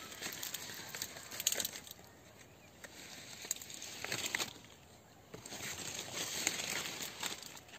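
Rustling and crackling of leaves, irregular swells of crisp rustle with small clicks, the sound of guava foliage and dry fallen leaves being brushed and stepped through.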